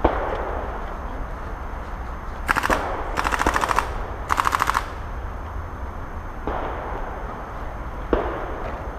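Airsoft guns firing three short bursts of rapid automatic fire, one after another, a few seconds in, with a few single sharp cracks before and after.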